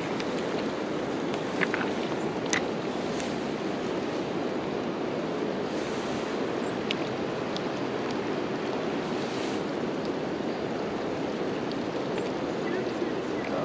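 Steady rush of river water, with a few faint short clicks.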